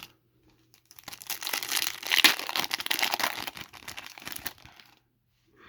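A foil trading-card pack wrapper being torn open and crinkled by hand, a dense run of crackling that starts about a second in, peaks around two seconds in and dies away before the end.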